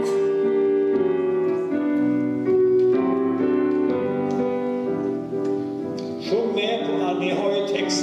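Piano playing held chords in a slow song's introduction. About six seconds in, a higher melodic line with vibrato comes in over it.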